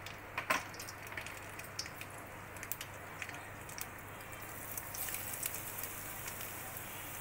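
Mustard seeds spluttering in hot oil: scattered sharp pops over a faint sizzle. The sizzle and popping pick up a little about five seconds in, as crushed ginger goes into the oil.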